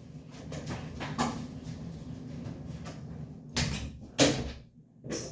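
A door opening and banging shut: two loud knocks about half a second apart, then a short click at the end. Before them there is faint rustling and movement.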